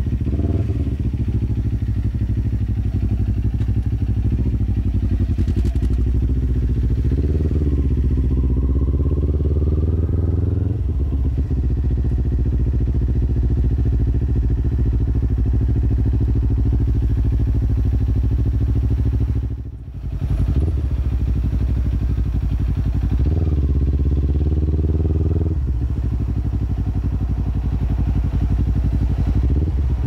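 Kawasaki Ninja 400 parallel-twin engine running through an Akrapovic full-system exhaust while riding. The engine note climbs in pitch and then drops suddenly a couple of times, and there is a brief dip in level about two-thirds of the way through.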